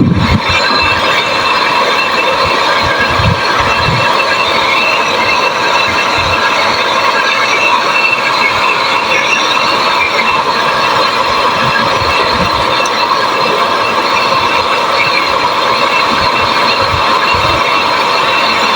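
Brazing torch flame hissing steadily while a compressor's discharge pipe is brazed, with a few faint low knocks.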